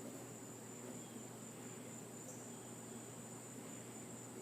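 Insects trilling steadily at one high pitch, with a brief break a little over two seconds in.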